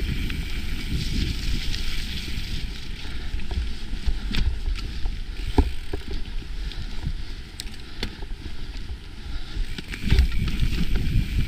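Mountain bike rolling fast down a dirt singletrack: a steady rumble of knobby tyres on dirt and wind buffeting the microphone, with scattered sharp clacks and rattles from the bike jolting over bumps.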